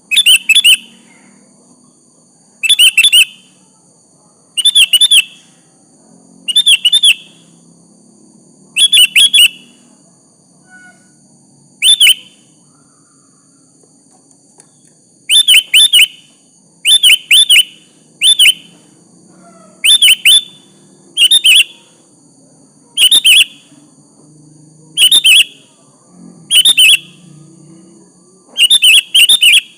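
Sooty-headed bulbul (kutilang) calling: short, bright phrases of a few quick notes, repeated every second or two, with a pause of a few seconds about halfway through.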